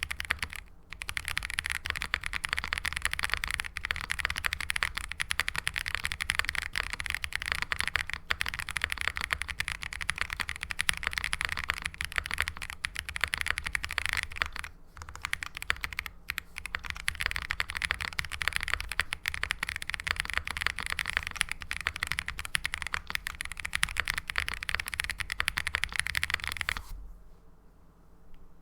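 Fast, continuous typing on a gasket-mounted custom mechanical keyboard with lubed Gazzew Boba U4T 62g tactile switches on an FR4 plate, GMK keycaps and foam dampening: a dense stream of keystroke clacks. There are a few short breaks, and the typing stops about a second and a half before the end.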